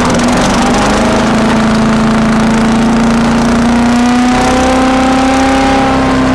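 Earthquake wood chipper's small gasoline engine running steadily with no load, its pitch creeping up slightly.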